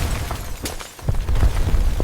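Car explosion sound effect. A blast's deep rumble dies away with scattered sharp cracks of debris, then a second blast hits just after a second in.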